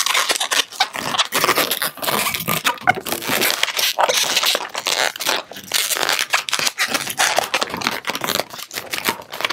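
Inflated latex 260 twisting balloons rubbing and crinkling under the hands as one balloon's nozzle is worked into a pinch twist in another, a dense, irregular run of rustling and sharp little crackles.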